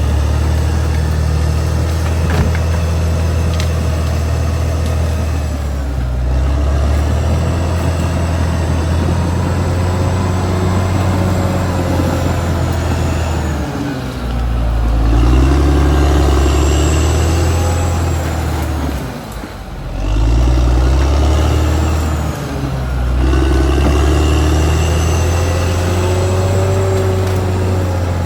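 Caterpillar D6R XL bulldozer's diesel engine running under working load, its pitch shifting up and down several times and dropping briefly a little past the middle, with high whines that rise and fall over it.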